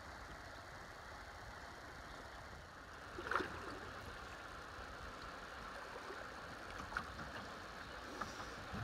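River water rippling and lapping along a plastic kayak drifting downstream, a steady low rush. One louder splash comes about three seconds in, with a few light ticks later.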